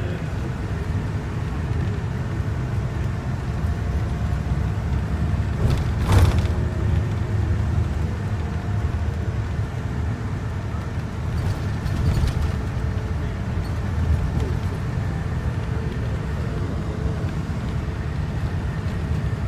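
Steady low rumble of road and engine noise heard from inside a moving vehicle, with a sharp knock about six seconds in.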